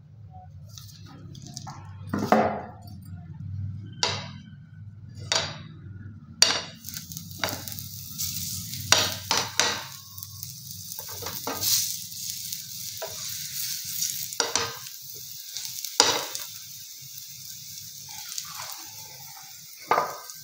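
Spinach paratha sizzling on a hot nonstick frying pan, a steady hiss that starts about six seconds in once the flatbread is laid on. Scattered knocks and clinks of the rolling board, pan and a spoon against a glass bowl sound over it, with a steady low hum underneath.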